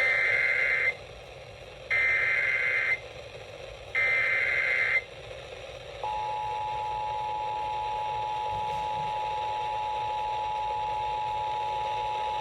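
Emergency Alert System SAME header: three one-second bursts of warbling digital data tones, two seconds apart, then the steady two-tone attention signal starts about six seconds in, heralding a relayed severe thunderstorm warning.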